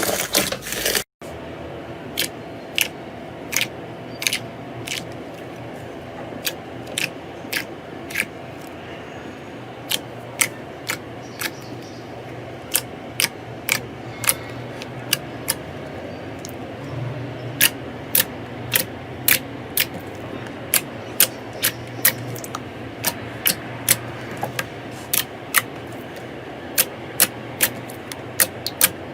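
Slime being squeezed and pressed by hand, giving sharp, irregular popping clicks, about one or two a second and coming more often in the second half.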